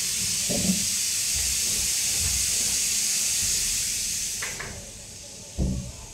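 A steady high hiss that drops away abruptly near the end, with a few light knocks and rattles from handling small screw packets.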